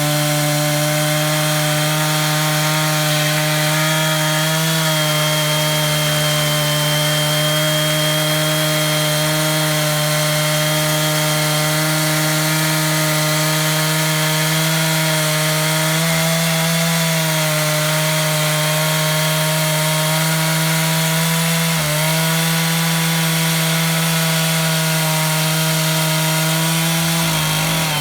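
Two-stroke chainsaw in an Alaskan-style chainsaw mill running at full throttle, ripping lengthwise through a southern yellow pine log. The engine note holds steady under load, dipping briefly in pitch three times.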